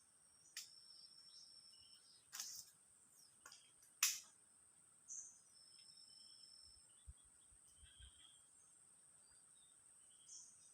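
A steady, faint high-pitched insect drone of crickets or cicadas in swamp forest, with a few sharp clicks in the first half, the loudest about four seconds in, and a few brief high chirps.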